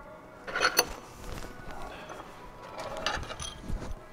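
Metal clinks and rattles of hand tools and hardware being worked on an engine, in two short bursts, one about half a second in and one about three seconds in, with a few dull knocks.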